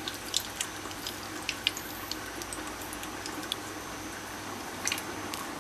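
Cooking oil poured in a thin stream into an empty pot preheated on a high flame until smoking: a steady pouring wash of noise with scattered small sharp crackles as the oil meets the hot metal.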